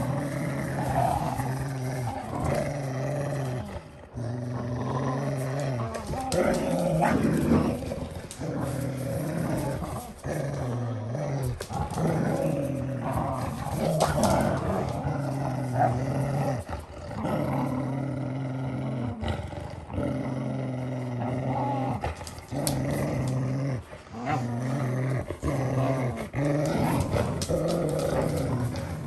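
Rottweilers play-growling while tugging on a rope toy: long low growls, one after another with short breaks between them. Sharp clicks and scuffles are scattered through it.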